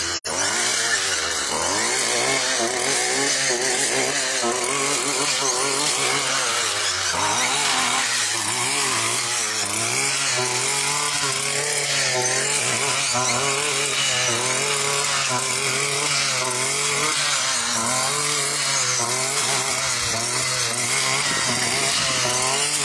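Petrol brush cutter running at high speed as it cuts through tall grass and weeds. It is a steady engine note whose pitch wavers up and down as the cutting head meets the stems.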